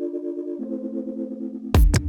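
Electronic background music: pulsing synthesizer chords that change about half a second in, then heavy bass and drum hits come in near the end.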